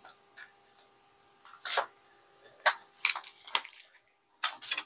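Handling noise from a steel measuring-tape reel and its plastic case: a few separate clicks, knocks and rustles as the reel is moved and settled into the case.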